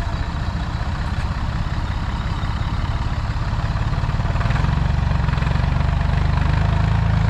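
Massey Ferguson 135 tractor engine running, the even low beat of the engine growing louder and heavier about four and a half seconds in as it comes under load pulling the tractors chained behind it.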